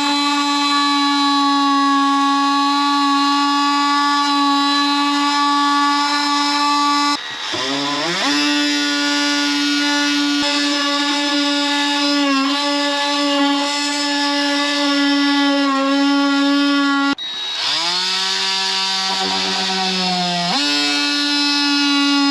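Handheld power tool cutting through the plastic HVAC heater box, running at a steady high-pitched buzz. Twice it stops and spins straight back up, about a third and about three quarters of the way through.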